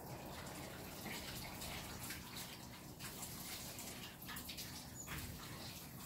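Water running faintly from a tap and splashing, as fresh water is drawn for a pet bird's water dish.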